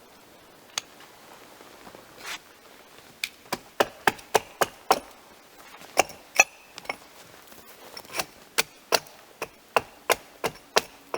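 Blade chopping on wood: a single sharp knock, then from about three seconds in a quick, irregular run of sharp wooden knocks, roughly two to three a second.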